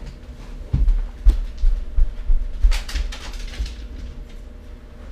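Footsteps thudding on the floor as a man gets up and walks away, about three steps a second, with a brief rustle near the middle, fading after about four seconds.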